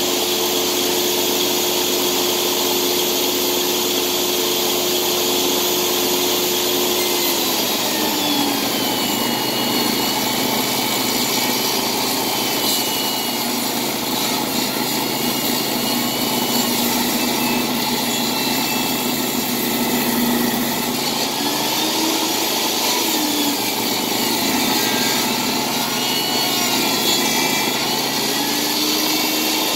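Electric table saw ripping a board. The blade's steady whine changes about seven seconds in as it enters the wood, then wavers through the rest of the cut as the motor works under load.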